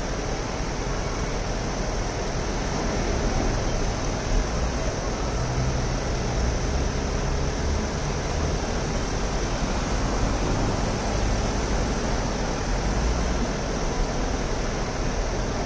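Steady street noise: a low engine rumble under an even hiss, with no sharp events.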